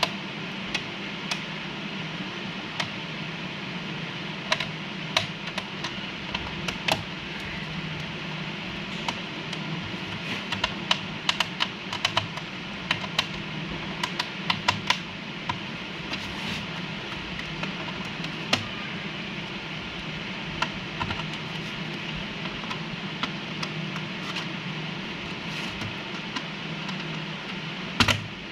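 Fingernails tapping and clicking irregularly on the plastic underside of an Acer laptop, thickest in the middle stretch, with one louder click near the end, over a steady low hum.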